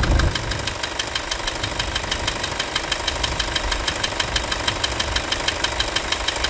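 Toyota Hilux 2.5 turbo-diesel engine idling with its accessory belt and pulleys turning, a steady diesel clatter of evenly spaced ticks. No belt scraping is left: a new belt and pulley have cured it.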